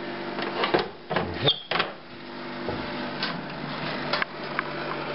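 Steady low mechanical hum of the HP DesignJet Z3200 printer, with a few sharp plastic clicks and knocks about a second in as its flap-down manual sheet tray is handled.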